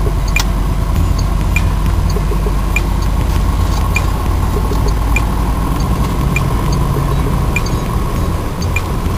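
1963 Lincoln Continental driving, heard from inside the cabin: a steady low engine and road rumble, with a light tick repeating evenly about every second and a bit.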